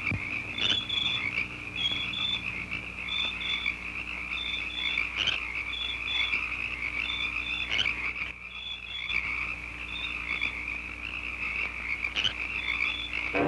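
Frogs croaking in a night marsh: short calls repeated every second or so, often in pairs, over a steady high trilling chorus.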